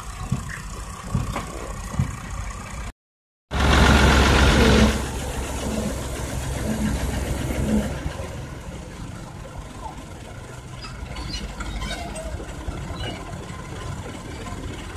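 A farm tractor's diesel engine runs steadily while pulling a heavy trailer load. A brief dropout comes about three seconds in, followed by a louder stretch of a second or so before it settles back.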